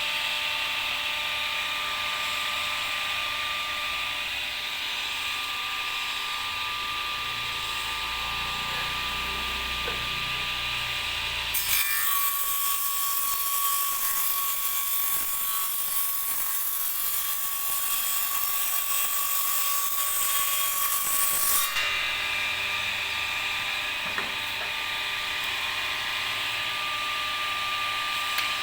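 An electric power tool runs steadily for about ten seconds in the middle, starting and stopping abruptly, over a steady high background hum.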